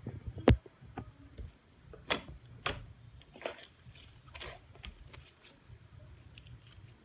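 Butter slime being squished and pulled by hand, giving irregular sticky clicks and smacks, the loudest about half a second in.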